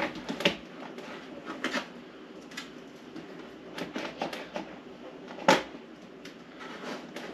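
Hard plastic parts of a cheap egg incubator clicking and knocking against the plastic tub as a part is pushed and fitted into place. The knocks come irregularly, and the loudest is about five and a half seconds in.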